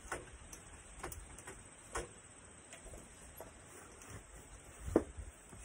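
Scattered light taps and knocks from a gloved hand wiping down a sliding glass door and its frame, with one sharper knock about five seconds in.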